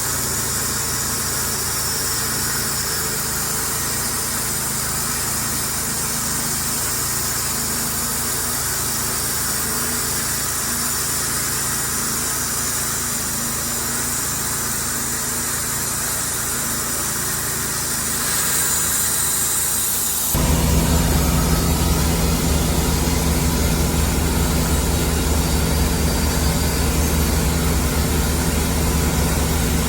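Portable sawmill's engine running steadily; about twenty seconds in the sound abruptly becomes louder, with a much stronger low hum.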